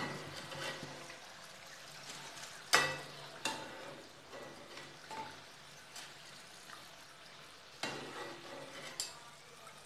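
Oil sizzling in a kadhai as deep-fried rice-flour fingers are scooped out with a slotted metal spoon into a wire-mesh strainer. The spoon clinks against the strainer and pan several times, the loudest knock about three seconds in.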